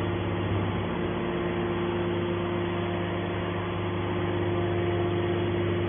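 Hydraulic scrap metal baler's motor and pump unit running with a steady, even hum.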